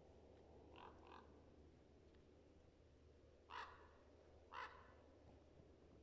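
A crow cawing some way off: two faint short caws about a second in, then two louder caws about a second apart past the middle.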